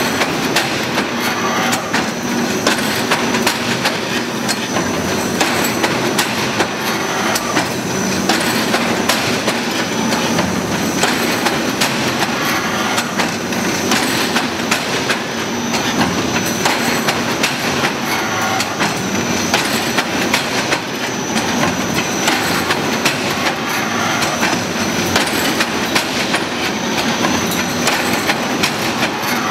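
Gabion mesh machine running steadily, a loud, dense metallic clatter of rapid knocks and clicks as it twists wire into hexagonal mesh and winds it onto a roll.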